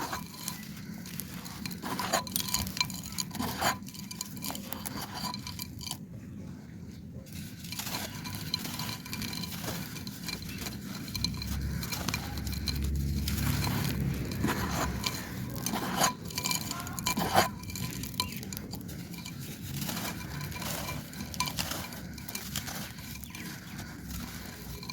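Dry clay pot being crumbled, with irregular crisp crunches and clinks of hard clay fragments breaking and knocking together.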